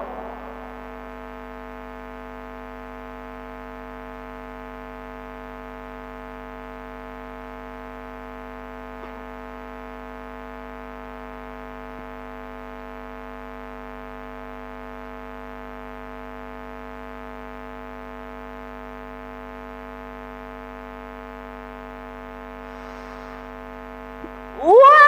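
Steady electrical hum from a public-address sound system, a buzz of several unchanging tones held throughout. In the last moment a woman's reciting voice comes back in on a rising note.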